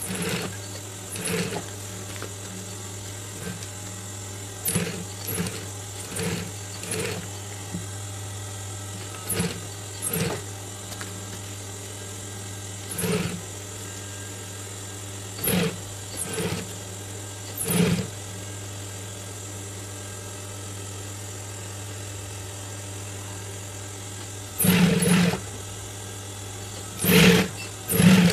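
Industrial sewing machine stitching in short runs, about fifteen bursts of under a second each at uneven gaps, with a longer run of about a second near the end, over a steady low hum between them.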